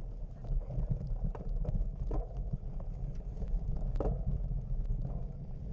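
Wind buffeting the microphone, a rough steady rumble, with a few short clicks and knocks over it.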